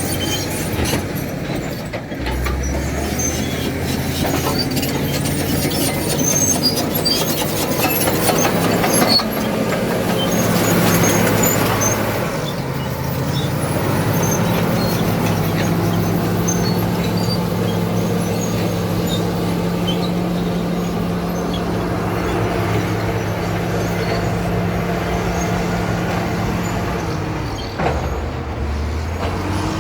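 Caterpillar D7 bulldozer at work: its diesel engine runs steadily, its note shifting a few times as the load changes, with scattered clanks and squeaks from the steel tracks.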